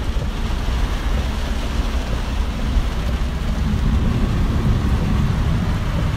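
A car driving on a wet highway in heavy rain, heard from inside the cabin: a steady low rumble of engine and road under the hiss of tyres on wet tarmac and rain on the car.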